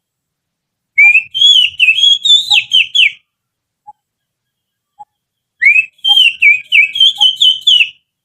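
A person whistling through the little finger, imitating the song of an oriental magpie-robin: two runs of rapid warbling high notes, about two seconds each, the second beginning a little past the middle.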